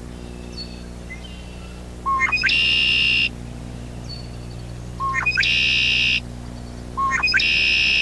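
Male red-winged blackbirds singing their territorial song three times. Each song is a couple of short clipped notes followed by a buzzy trill lasting nearly a second.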